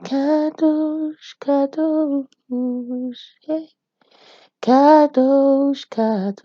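A solo voice singing unaccompanied: a slow worship chant of short held notes separated by brief pauses.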